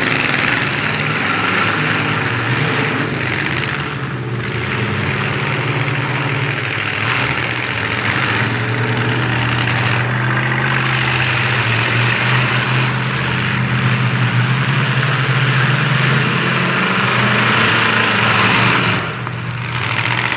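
Engines of several full-size demolition derby cars running loud and revving, rising and falling in pitch as the cars drive and push through the mud. The engine noise dips briefly near the end.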